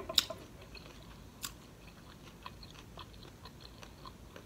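Close-miked chewing: wet mouth clicks and soft crunches, with a sharp crunch about a fifth of a second in and another about one and a half seconds in, then fainter small clicks.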